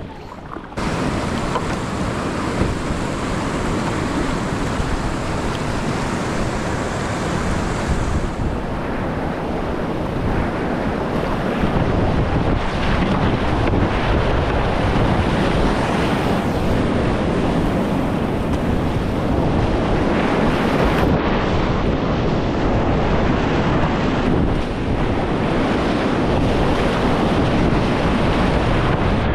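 Whitewater rapids heard from inside a running kayak: a loud, steady rush of churning water splashing over the boat and camera, with wind buffeting the microphone. It starts suddenly about a second in.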